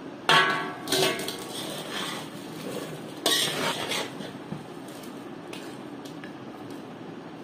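Steel plate and spoon clanking and scraping against a large aluminium tub while scooping out spiced mango pickle pieces. Three sharp, ringing clanks in the first few seconds, then softer scraping.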